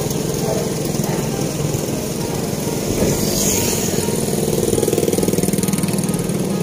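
Small motorcycle engines of traffic running steadily close by, with a fast, even pulsing.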